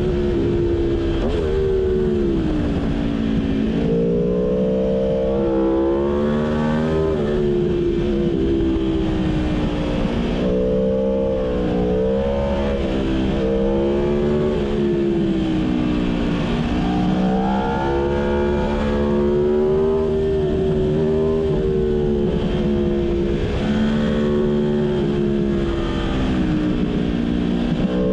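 Aprilia Tuono motorcycle engine heard from the rider's seat, pitch rising and falling repeatedly as it accelerates out of corners and lets off into the next, over a steady rush of wind and road noise.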